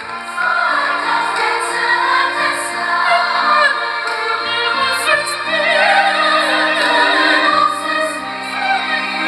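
Large choir of children and adults singing together in a finale song, with held, wavering notes over musical accompaniment.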